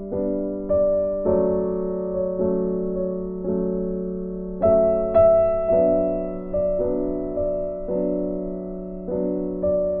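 Background piano music: slow chords struck about once a second, each fading before the next.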